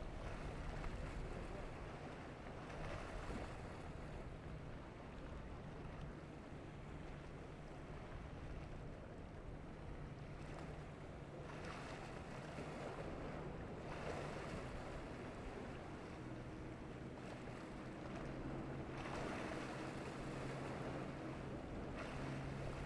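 Choppy inlet water and wind on the microphone, with a boat engine humming steadily underneath; a second, higher engine tone joins near the end.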